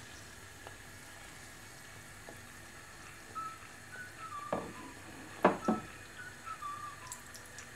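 A kachori deep-frying in medium-hot oil, a soft steady sizzle. Three short knocks come about halfway through, and a faint wavering whistle-like tone that steps down in pitch joins from about three seconds in.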